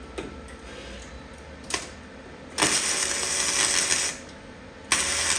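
Electric welder arcing on car-body sheet metal in two short bursts: a weld of about a second and a half, then a second one starting near the end, each a dense crackle.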